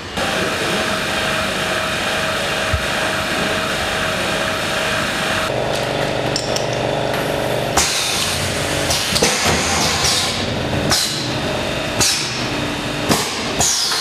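Pneumatic under-cap aerosol filling machine at work: a steady hiss with a faint hum for about five seconds, then a run of mechanical clunks. Several of the clunks are followed by a short sharp hiss of air that falls in pitch, repeating every second or two.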